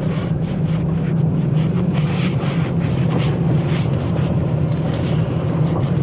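Car running at low speed, heard from inside the cabin: a steady low engine and road drone.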